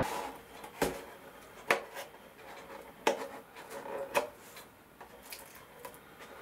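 A thin polycarbonate RC truck body shell handled at close range: four sharp plastic clicks about a second apart, with faint rubbing of fingers on the shell and its film in between.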